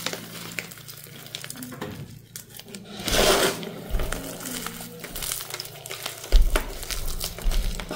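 Hands crushing and sifting crumbly, powdery chunks mixed with glitter and confetti: steady fine crackling and crunching, with a louder crunch about three seconds in and dull thumps near the end.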